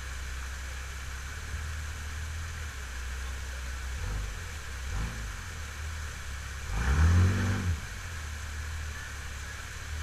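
Off-road Jeep engine running low and steady as it works at climbing a rock waterfall ledge. There are short blips of throttle about four and five seconds in, and a bigger rev about seven seconds in that rises and falls. The rushing water of the falls runs steadily behind it.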